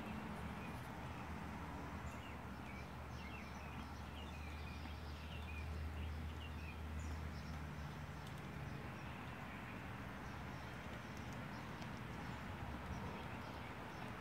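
White-tailed deer grazing close by, soft cropping and chewing of lawn grass. Faint bird chirps come and go over a low steady hum.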